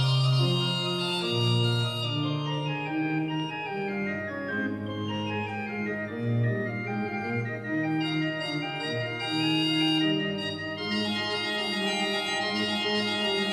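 Church pipe organ playing slow, sustained chords, the notes shifting about once a second.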